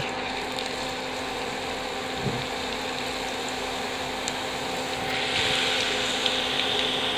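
Raw nendran banana slices frying in hot coconut oil in a pan: a steady sizzle that gets louder about five seconds in as more slices go into the oil.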